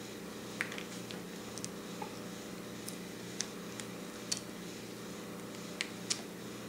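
Scattered light clicks and scratches of hands handling the metal parts of a Carter BBD carburetor as the remains of the air horn gasket are picked off, over a steady low hum.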